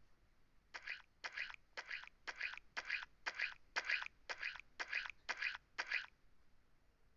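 A steady series of eleven crunches, about two a second, that stops about six seconds in.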